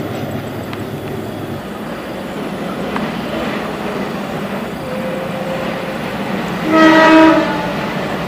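A diesel locomotive's horn sounds one blast of under a second, about seven seconds in, over the steady rumble of a train running on the line.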